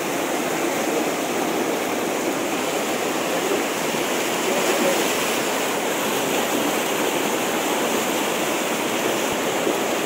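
Swollen, muddy river water rushing steadily over a rocky ledge in white-water rapids.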